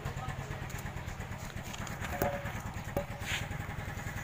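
A small motorcycle engine idling steadily, with two light knocks about two and three seconds in.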